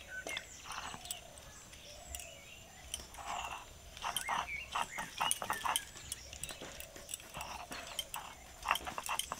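A small knife peeling and cutting raw taro corms by hand: a run of short, crisp cuts and scrapes that come thicker from about four seconds in.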